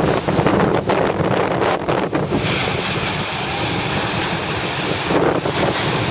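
Small surf breaking and washing in as whitewater, with wind buffeting the microphone.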